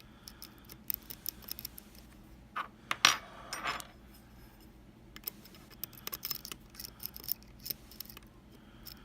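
Small metallic clicks and scrapes of lock picks and a tension wrench working the pins of a Kaba Quattro S dimple lock, with a louder clatter about three seconds in. The picking is starting over after the lock has dropped a set of pins.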